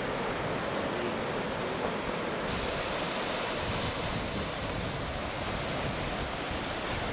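Ocean surf breaking and washing up a sandy beach: a steady rushing wash, growing brighter and hissier about two and a half seconds in.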